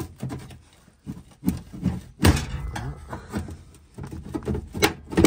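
Metal clicks, rattles and knocks from a rod prying at the latch of a 1959 Chevy Biscayne's locked metal glove box door, with a sharp knock about two seconds in and two more near the end.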